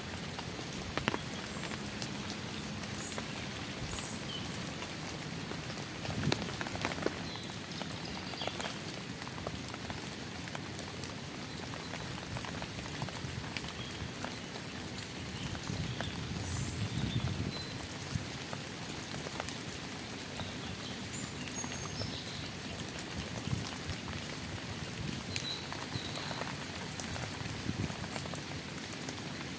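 Steady rain falling, with many single drops ticking close by.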